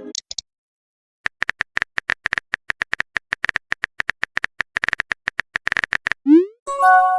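Quick, irregular typing clicks of a phone-keyboard sound effect for about five seconds. Near the end comes a short rising swoop, then a brief chime: chat-app sounds for typing and sending a message.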